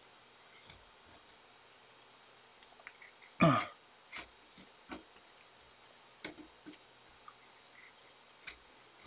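Small handling sounds from painting with a thin paintbrush on paper: scattered faint clicks and taps. There is one louder short sound about three and a half seconds in.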